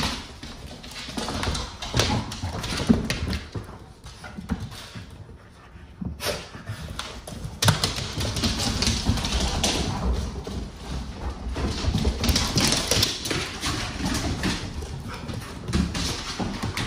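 Pit bull dogs running and play-wrestling on a hard floor: a dense patter of claws clicking and scrabbling, with dog scuffling noises. It eases for a moment about five seconds in, then picks up again.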